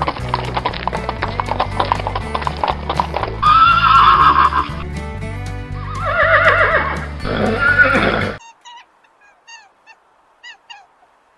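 A horse neighing three times over fast hoof clip-clops, with background music under it. Near the end the sound cuts off abruptly to faint, short bird chirps.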